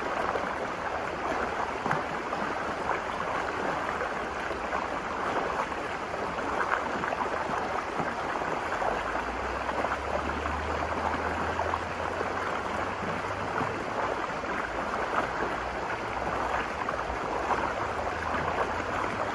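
River water running and splashing over rocks: a steady, even rush with fine irregular splashes.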